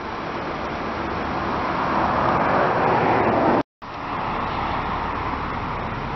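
BMW 325xi's 3.0-litre inline-six idling, heard from outside the car as a steady run with a hissy wash of sound. The sound drops out for a moment about three and a half seconds in, then resumes unchanged.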